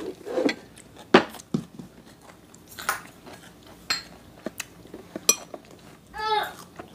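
Children eating: scattered clinks of a metal spoon and chopsticks against bowls and plates, with chewing in between. A brief voice sound comes near the end.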